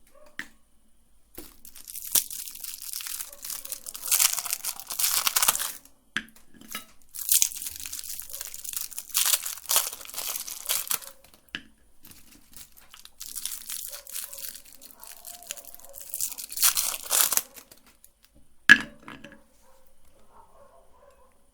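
Plastic candy wrappers being crinkled and torn open, in three long bursts of rustling, followed by a single sharp click near the end.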